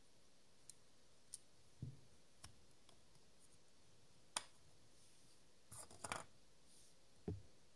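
Scattered small clicks and a few soft knocks of a 3D-printed plastic macro ring being twisted off a Canon EOS 70D's lens mount and set down on a wooden board. The sharpest click comes a little past four seconds in, with a quick run of clicks around six seconds.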